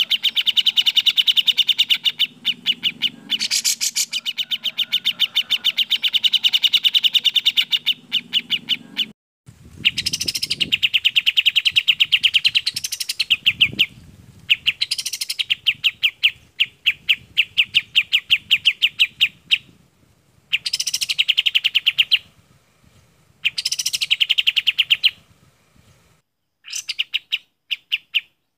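Songs of two bulbuls, the kapas tembak and the cucak jenggot: fast runs of sharp, clear chattering notes, unbroken for about the first nine seconds, then given in phrases of a few seconds with short pauses between them.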